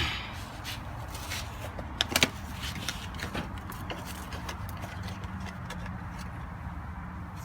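Light metallic clicks and taps of brake parts and tools being handled, with a sharper cluster of knocks about two seconds in, over a steady low hum.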